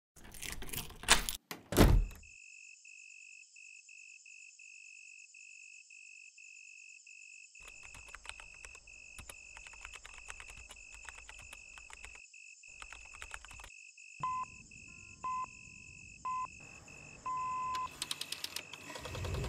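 Two loud thuds, then a steady high electronic tone, over which laptop keys are typed in a long run of irregular clicks. A few short beeps sound near the end.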